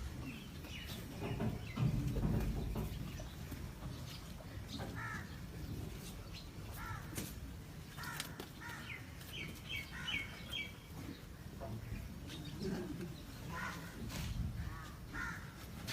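Birds calling, with crow-like caws and a quick run of four short calls about ten seconds in. A loud low rumble about two seconds in.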